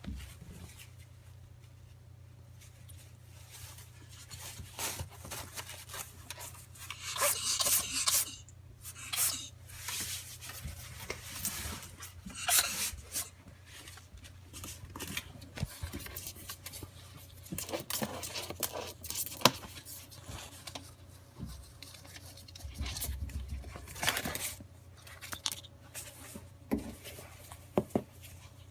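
A ferret sneezing over and over: short, sharp hissing bursts at irregular intervals, with a quick run of them about seven to eight seconds in. The owner is not sure these fits are true sneezes.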